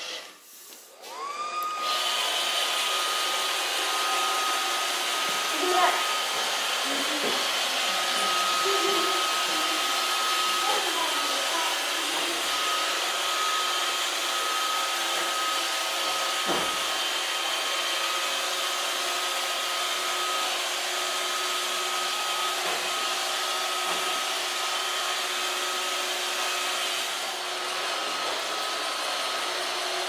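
iRobot Roomba 555 robot vacuum's motor spinning up with a rising whine about a second in, then running steadily with a high whine over the hum of its brushes and suction. A few light knocks break in along the way.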